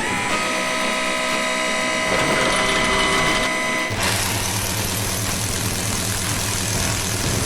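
Heavy machinery: for about four seconds a steady mechanical whine made of several held tones. Then it changes abruptly to a diesel engine running with an even low pulse.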